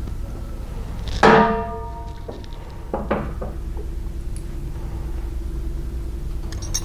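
A metal part or tool clanks against metal about a second in and rings briefly, then a second, lighter clank rings near three seconds. A low steady hum runs underneath.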